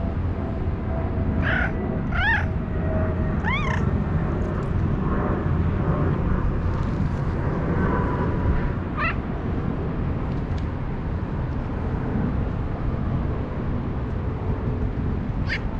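Street cats meowing: a few short meows close together early on, then single meows about nine seconds in and near the end, over a steady low background rumble.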